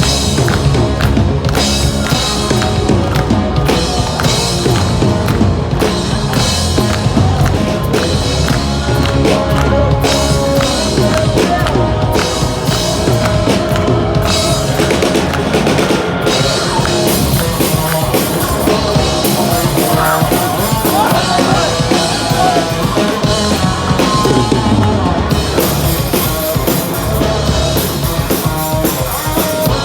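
Hard rock band playing live: distorted electric guitars, bass guitar and drum kit, loud and steady. The cymbals ring out more brightly from a little past halfway.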